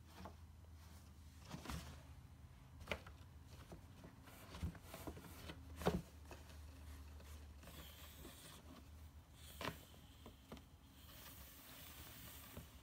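Faint scattered rustles and taps of a kitten moving about a soft fabric pet carrier and pawing at its cardboard box, the loudest tap about six seconds in, with soft scraping near the end.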